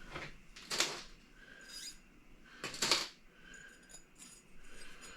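Guitar hardware and strings being handled as the guitar is taken apart: two sharp clatters, about a second in and about three seconds in, with lighter scrapes and rustles between them.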